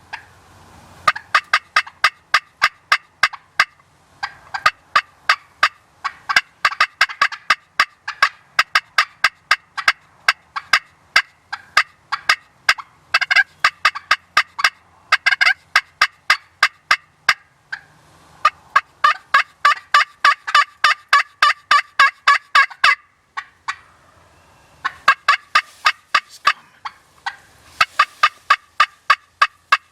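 Turkey calling: a long run of short, sharp, rapid notes, about four to five a second, broken by a few brief pauses.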